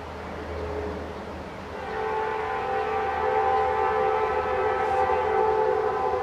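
Air horn of an approaching Norfolk Southern GE Dash 9 (C40-9W) locomotive: a short faint note, then about two seconds in a long, steady multi-note chord that holds to the end.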